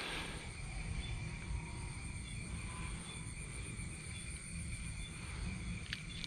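Night insects, crickets among them, calling steadily in several high continuous and pulsing tones over a low rumble.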